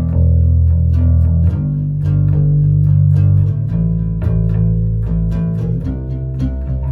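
Acoustic band music, instrumental: guitars picking a quick pattern over bass guitar notes that are held and change every second or two.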